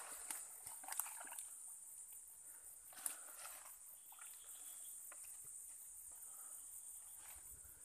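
Steady high-pitched insect chorus with a regular pulse, over rustling of brush. A few sharp snaps or cracks in the first second and one about three seconds in, as stems and twigs are pushed through or cut.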